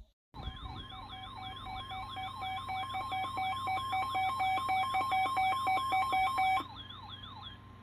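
Electronic weather-alert attention tone: a synthesized siren-like warble sweeping up and down about three times a second over steady pulsing tones. It cuts off sharply about six and a half seconds in, leaving a fainter warble for another second. It signals that a new weather warning is about to be read.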